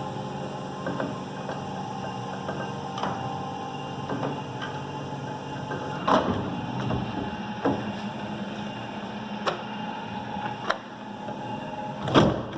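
FAG 405 letterpress proof press printing: a steady mechanical hum under a string of clicks and knocks, which grow louder in the second half and come about one to two seconds apart, the loudest knock near the end.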